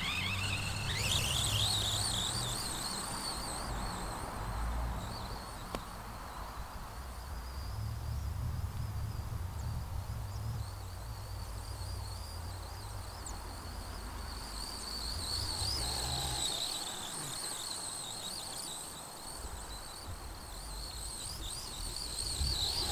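High-pitched whine of an RC monster truck's brushed electric motor, overvolted on a 3S battery, rising sharply as the truck accelerates about a second in, then wavering up and down with the throttle. A low rumble comes and goes underneath.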